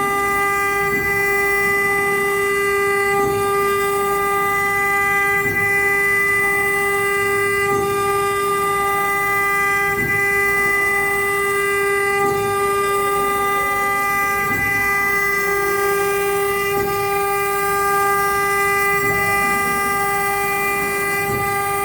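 Wood CNC router running a carving job: the spindle gives a steady high-pitched whine throughout, while short falling tones recur about every two seconds as the axis drive motors change speed along the tool path.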